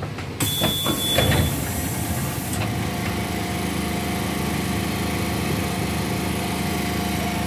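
Electric train doors opening about half a second in, with a short high tone, letting in a small petrol engine on a track worker's hand-guided tool running steadily at constant speed.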